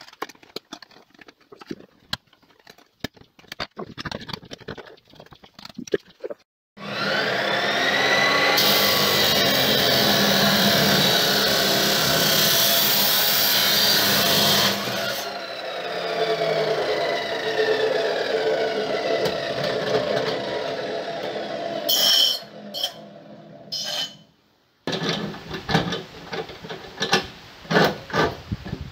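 Clicks and clinks of handling at the saw, then an NRT Pro 14-inch abrasive cut-off saw's 1600 W motor starts about a quarter of the way in, rising in pitch. Its disc cuts through a steel section at a 45-degree angle with a rough grinding hiss for about six seconds, after which the motor winds down with falling pitch. More clicks and clinks of handling near the end.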